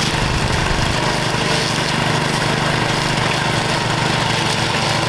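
Mower engine running steadily while cutting through thick, overgrown thistles and weeds.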